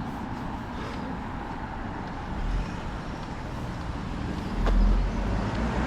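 Street traffic noise: a steady hum of road traffic, with a louder low rumble near the end as a vehicle passes close.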